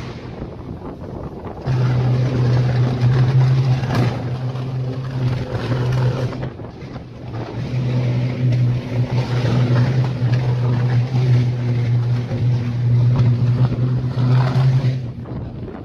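Loud, steady electrical buzz of power lines and a transformer arcing and shorting out. The buzz breaks off twice, and there is wind rush on the microphone and one sharp crack about four seconds in.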